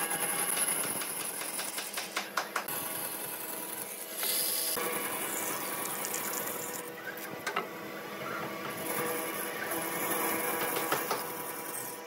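Band saw running and cutting through small wooden blocks, with a steady motor hum and blade noise. A few sharp knocks come about two seconds in, from the wood handled on the saw table.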